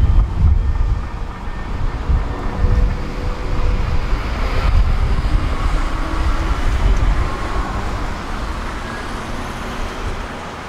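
Road traffic going by on a busy street, with a heavy, uneven low rumble that eases off near the end.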